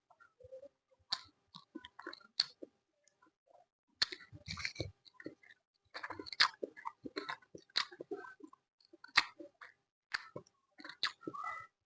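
Close-miked chewing with short wet clicks and mouth smacks as a person eats a meal. The chewing sounds are sparse at first, pause briefly about two and a half seconds in, and turn steady and denser from about four seconds on.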